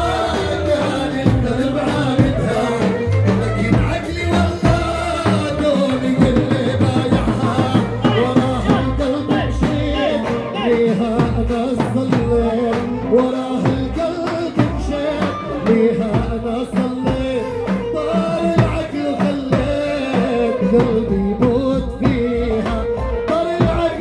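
Live Arabic dance music: a male singer through a microphone over a band with a drum kit, and a large tabl drum beating the dabke rhythm.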